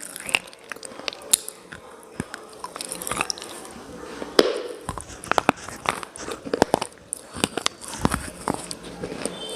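A person biting and chewing hard, brittle clay pieces (slate pencils or baked clay cubes), many sharp irregular crunches a second.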